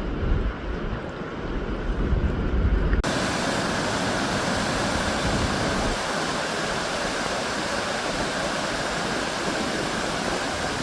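Wind rumbling on the microphone for the first three seconds. Then, after an abrupt change, the steady, full rush of a waterfall.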